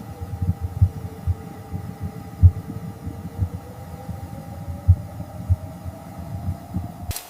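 Irregular low thumps of wind buffeting the tent fabric and microphone, the strongest about two and a half and five seconds in, over a faint steady hum.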